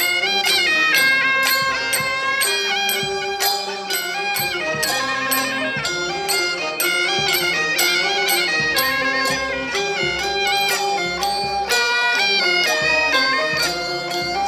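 Traditional Chinese folk music: a reedy wind instrument plays a stepped melody of held notes over a steady percussion beat.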